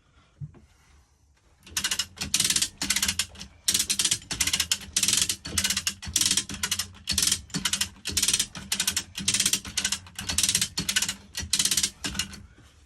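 Ratchet mechanism clicking in quick back-and-forth strokes, about two a second, as a ratcheting hoist lifts a sailboat's engine to get at its sump seal. It starts a couple of seconds in and stops just before the end.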